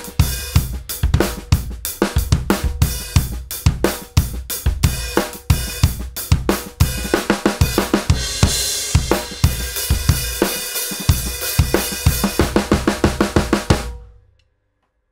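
Full drum kit played in a steady groove: the 20-inch Rogers Powertone bass drum, its front head tuned a major third above the batter, punches under snare, hi-hat and cymbals. The playing stops suddenly about a second before the end.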